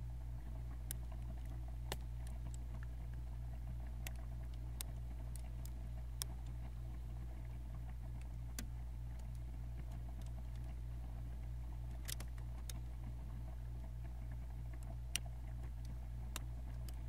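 Freezer running with a steady low hum, heard from inside the freezer, with sparse, irregular crackles and ticks from plastic bags inside it.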